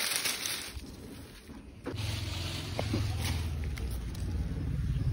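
Dry leaves rustling as a hand searches through them. About two seconds in, a low, steady engine drone starts and becomes the loudest sound.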